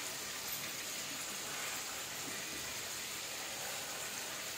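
Chicken frying in oil in a karahi, a steady, even sizzle.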